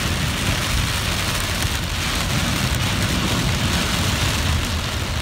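Heavy rain pouring down on a car, heard from inside the cabin: a steady, even hiss.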